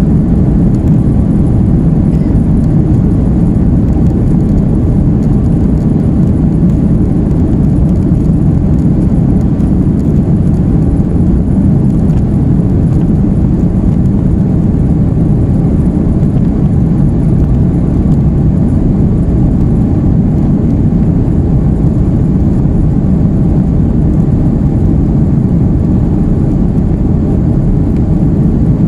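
Steady, loud low rumble inside a jet airliner's cabin as the plane rolls along the ground: engine noise and wheel rumble, with no change in pitch or level.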